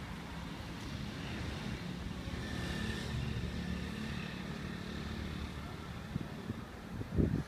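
City traffic: a steady low rumble of passing vehicles that swells a little in the middle. A short low thump comes near the end.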